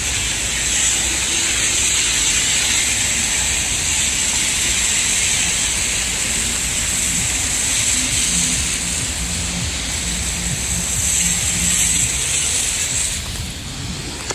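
Steady hiss of traffic on a busy road, with tyre noise and a low engine hum from passing vehicles; the high hiss drops away near the end.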